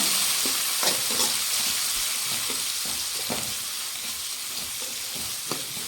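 Chopped onions sizzling in hot oil with mustard seeds and cumin as they are sautéed, with a spoon now and then scraping and knocking against the pan. The sizzle eases a little as it goes.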